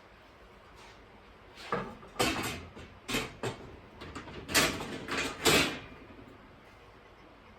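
Steel shelving parts being handled and fitted: a run of short clunks and scraping slides over about four seconds, the loudest two near the end.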